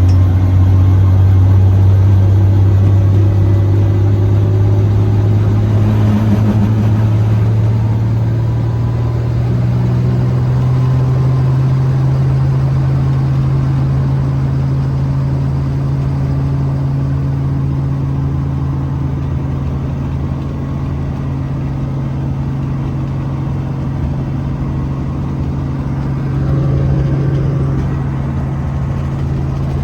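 Helicopter engine and rotor drone, a loud steady low hum whose pitch rises a step about ten seconds in and then holds.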